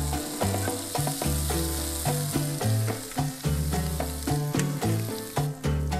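Hamburger patties sizzling in hot fat in a cast-iron skillet, with a slotted metal spatula clicking against the pan as they are lifted out. Background music with a moving bass line plays along.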